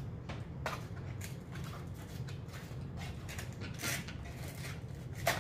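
A few soft clicks and rustles of a small toy cracker box being handled and opened, over a steady low hum.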